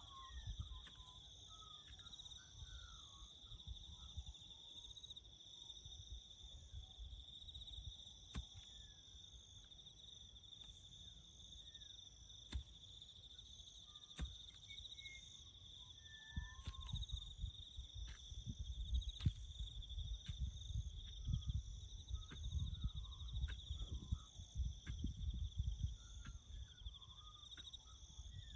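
Crickets trilling steadily in the bush, with scattered short chirping calls over them. An uneven low rumble runs underneath and grows heavier about halfway through.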